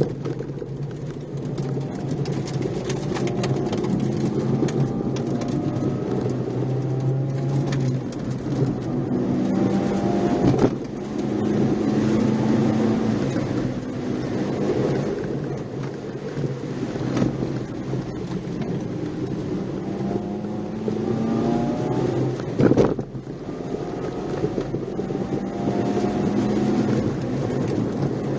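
Nissan March 12SR's 1.2-litre four-cylinder engine heard from inside the car, revving up and dropping back again and again as it runs through the gears, over a steady rumble of road noise. Two sharp knocks stand out, about a third of the way in and again about four fifths in.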